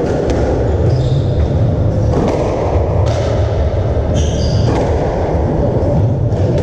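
Squash rally: the rubber ball knocked by rackets and thudding off the court walls every second or so, with court shoes squeaking briefly on the wooden floor near the start and again about four seconds in. A steady low rumble runs underneath.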